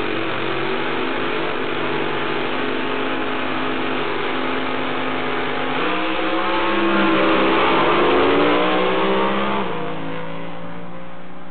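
Drag racing cars' engines running at the starting line, then rising in pitch and getting louder from about six seconds in as they launch down the strip, falling off again near the end.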